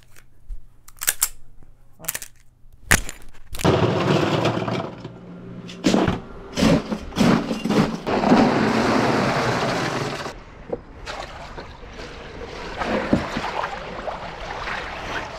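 A few handling clicks and knocks, then several seconds of ice cracking and clattering as it is broken up and dumped. Near the end, water and loose ice slosh in an ice-filled cold-plunge barrel.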